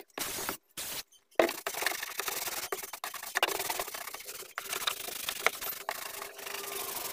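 Cloth scrubbing shampoo foam over the hard plastic trim of a car's boot sill: a few short strokes in the first second, then continuous rubbing with small clicks from about a second and a half in.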